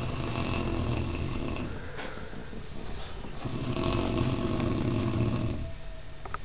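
Snoring: two long snores, the first at the start and a louder second one from about three and a half to nearly six seconds in.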